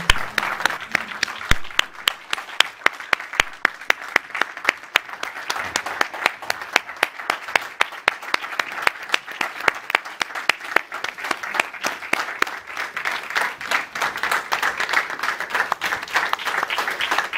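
A roomful of people applauding: dense, sustained clapping with many separate hand claps, a standing ovation.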